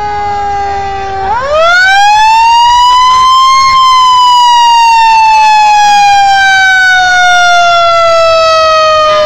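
Fire truck siren, loud. It is sliding low at first, rises steeply in pitch about a second in, tops out a couple of seconds later, then falls slowly and steadily in pitch.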